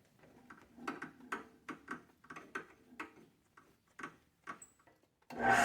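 A string of light, irregular clicks and taps, several a second, as small objects are handled on a workbench. Near the end a machine cuts in suddenly and runs loud and steady.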